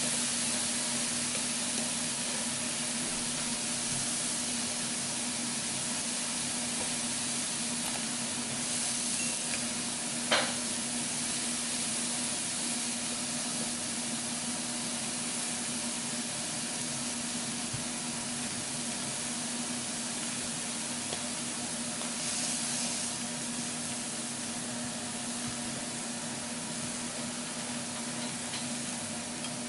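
Thin-sliced beef and mushrooms sizzling steadily on a hot tabletop grill plate, over a steady low hum. One sharp tap about ten seconds in.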